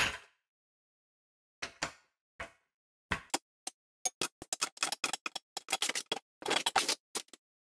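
A jack being worked to raise the rear wheel hub to ride height: a few separate metallic clicks, then a fast, irregular run of clicks and ticks from about four seconds in.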